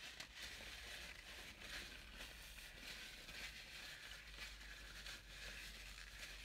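Near silence: a faint hiss with soft chewing and light rustles of a paper napkin.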